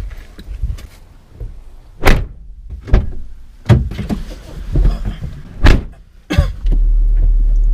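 A series of knocks and thumps from a gutted Honda Civic's door and cabin as someone gets in, then near the end a steady low rumble starts suddenly as the engine is started.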